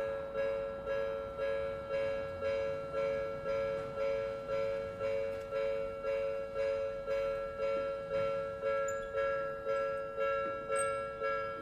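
Japanese railway level-crossing alarm, the Odakyu-type electronic warning bell, ringing steadily about twice a second with two close tones in each strike.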